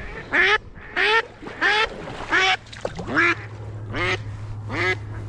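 Live hen decoy duck of mallard type quacking in a loud series of about seven quacks, evenly spaced. This is the decoy hen calling, which draws drakes in to the hunter.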